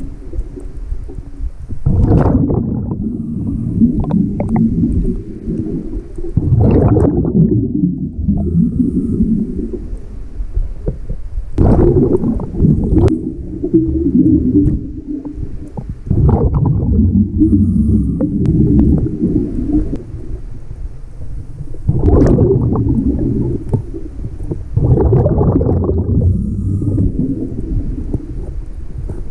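A scuba diver's exhaled bubbles from the regulator, heard underwater: low bubbling rumbles that come in bursts about every four to five seconds, each starting sharply and lasting a few seconds.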